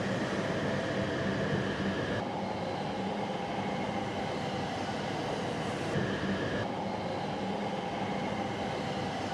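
E7/W7 series Shinkansen running slowly through station pointwork: steady rolling noise with an electric whine whose tones switch abruptly twice.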